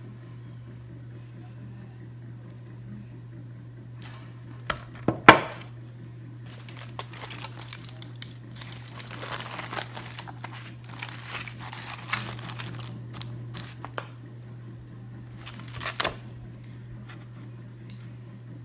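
Aluminum foil crinkling and rustling as it is pulled and crumpled by hand around a plate of charbroiled oysters, in scattered bursts. About five seconds in come two sharp knocks, the loudest sounds, and a low steady hum runs underneath.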